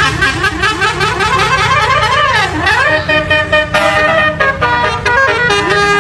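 Indonesian bus 'basuri' (telolet-type) musical horn, loud: a fast run of repeating rising whoops for about three seconds, then a melody of held notes stepping from pitch to pitch.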